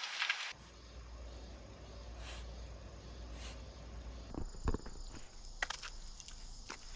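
Insects, crickets among them, chirping steadily over a low hum, with a few sharp clicks and knocks about halfway through.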